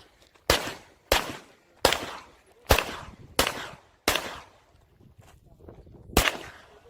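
Glock 34 Gen4 9 mm pistol firing seven shots: six at a steady pace of a little over one a second, then a pause and a final shot about six seconds in, each crack trailing off in a short echo.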